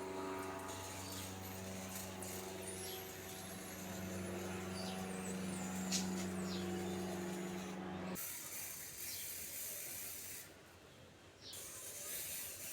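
A small motor running steadily with a rubbing, rasping sound. It cuts off suddenly about eight seconds in, leaving a faint hiss.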